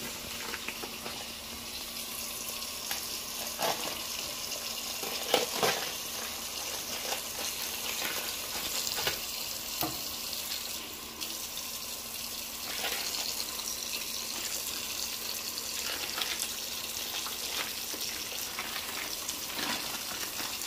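Kitchen tap running into a stainless steel sink as raw lamb breast is rinsed under the stream, with crinkling of the meat's plastic packaging.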